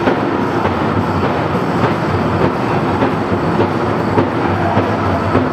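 Powwow drum group playing a fast, steady beat for the chicken dance, with singing and the dancers' leg bells jingling in a continuous clatter.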